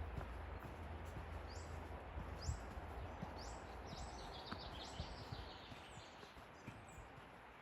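A small forest bird calling a run of short, high notes, each dropping in pitch, about one a second, over a steady background hiss. A few soft footsteps on the path are heard as well.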